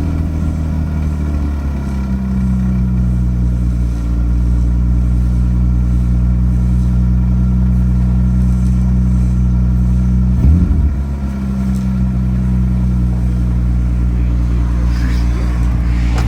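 Car engine idling steadily just after being started, run to warm the oil before an oil change. It settles slightly about two seconds in, and there is a brief thump about ten seconds in.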